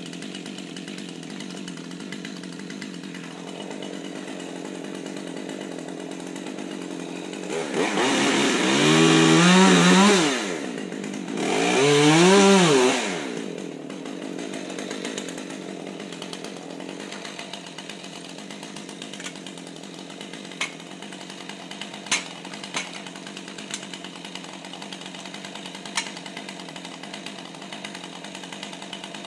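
Husqvarna 550 XP Mark II two-stroke chainsaw idling, revved up hard twice in a row for two to three seconds each, then settling back to idle. A few sharp knocks come in the latter half.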